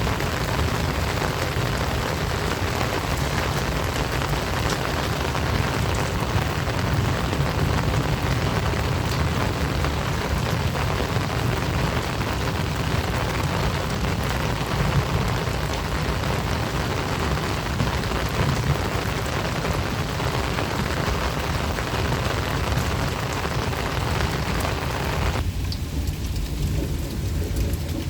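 Heavy rain falling steadily, an even dense hiss over a strong constant low rumble. About 25 seconds in, the higher part of the hiss drops away sharply while the low rumble continues.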